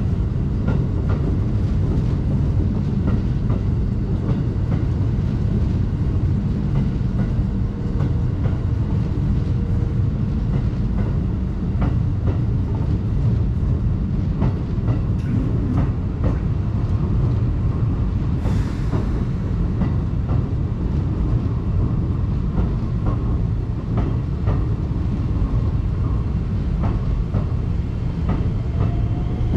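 Commuter train on the Keikyu Main Line running through the station with a continuous heavy rumble, its wheels clicking over rail joints. A short hiss comes about two-thirds of the way through, and a faint rising motor whine starts near the end.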